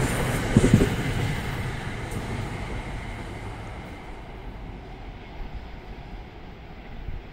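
A passing train's wheels clacking over rail joints just under a second in, then the train's rumble fading steadily as it moves away.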